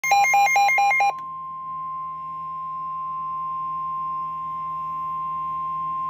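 Midland S.A.M.E. weather alert radio sounding an alert. About a second of rapid two-pitch electronic beeping is followed by the steady single-pitch NOAA Weather Radio warning alarm tone, the signal that a warning message follows, here a tornado warning.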